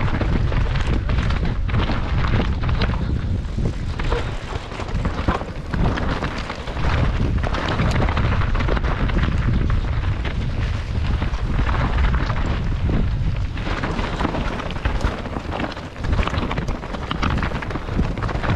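Mountain bike riding down a rough, rocky trail: heavy wind buffeting on the camera microphone, with frequent knocks and rattles from the bike and tyres over rough ground.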